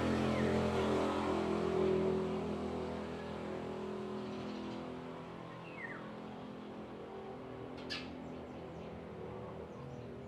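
Steady low engine hum, fading away over the first few seconds into faint room tone. A single short bird chirp about six seconds in and a brief click near eight seconds.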